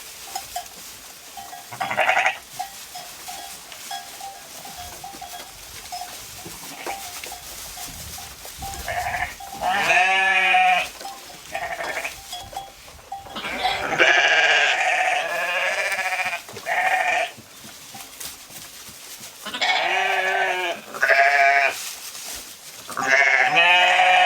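Sheep bleating: a string of wavering, quavering calls at varying pitches, one at a time, several seconds apart and coming more often in the second half.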